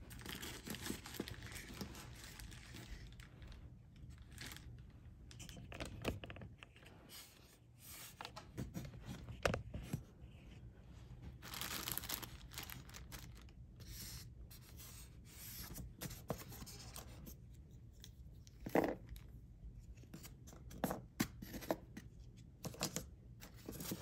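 Unboxing handling noise: rustling, crinkling and scraping of packaging (plastic bags, foam inserts, cardboard) as parts are handled and pulled out, in irregular bursts with a few sharper knocks near the end.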